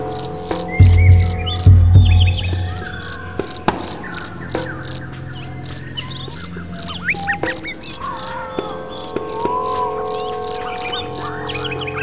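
Cricket chirping steadily, about three short chirps a second. A low rumble comes in about a second in and lasts about a second and a half.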